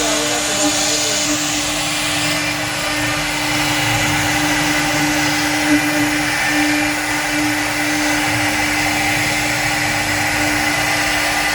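CNC wood-carving router running steadily: a constant spindle hum with a steady hiss from the bit cutting wood.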